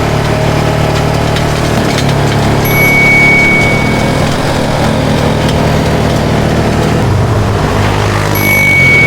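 Polaris RZR 570 side-by-side's single-cylinder engine running while driving, its pitch shifting about seven to eight seconds in. A thin high tone sounds twice, each for about a second and a half.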